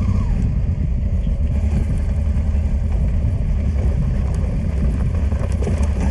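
Motorcycle engine running steadily while the bike rides slowly over rough gravel and grass, a continuous deep rumble.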